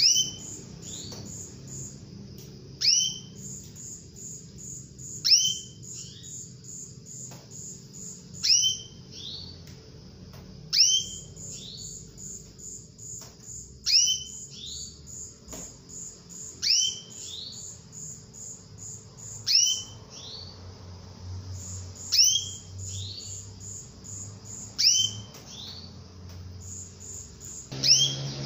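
Female canary calling to a male: a short, sharply falling chirp repeated about every two and a half to three seconds, eleven times. The calls sit over a steady, fast, high ticking.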